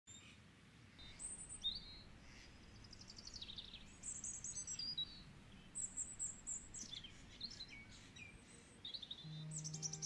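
Faint wild birdsong: a run of varied high chirps, trills and falling phrases. Soft, sustained music notes come in near the end.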